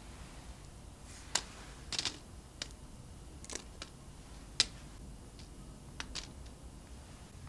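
Shredded mozzarella sprinkled by hand onto parchment paper on a baking tray: a scattering of light, irregular ticks and rustles as the shreds land, the sharpest tick about four and a half seconds in.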